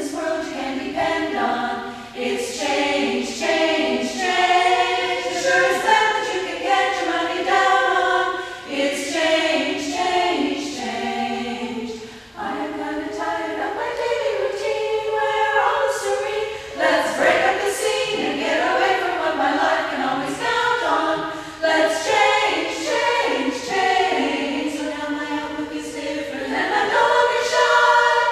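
Women's a cappella chorus singing in harmony, with a brief break in the sound about twelve seconds in.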